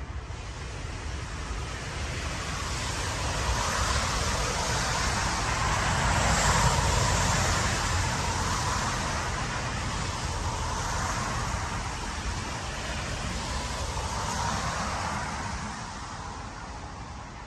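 Road traffic passing: a steady rush of tyre and engine noise that swells over several seconds, is loudest about six seconds in, and fades near the end.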